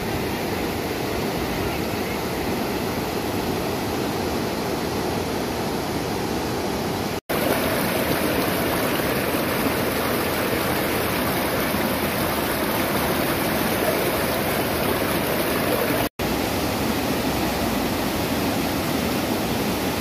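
River rapids, water rushing and splashing over rocks in a steady, unbroken noise. It drops out twice for an instant, about seven seconds in and again about sixteen seconds in, where the recording is cut.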